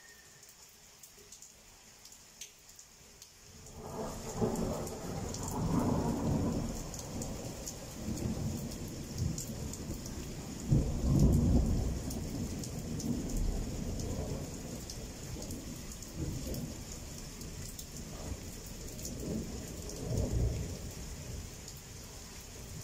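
Rain hissing steadily; about three and a half seconds in, a long rolling rumble of thunder begins, swelling several times with a sharp, loudest clap near the middle, then easing toward the end.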